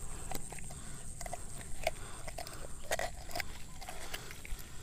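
Scattered small clicks and rustles of hands unhooking a frog lure from a caught snakehead, heard over a low steady rumble.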